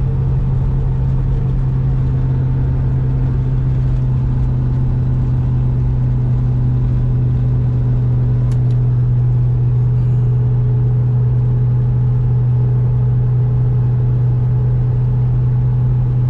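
Twin-turbo V8 of a Saleen Mustang cruising in fifth gear at about 60 mph, a steady low drone that holds an even pitch, with road noise under it.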